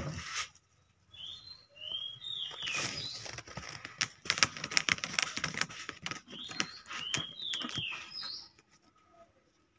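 A kitten's paws scratching and tapping on a woven plastic mat: a busy run of clicks and rustles, loudest about halfway through. Small birds chirp in the background in two short bursts of high, quick calls, one early and one near the end.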